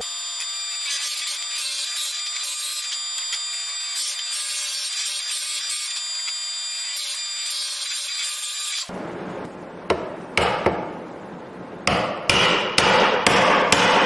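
Drill press running steadily with a high whine as a Forstner bit bores into wood. After about nine seconds it stops, and a chisel is struck several sharp blows, chopping out a square mortise.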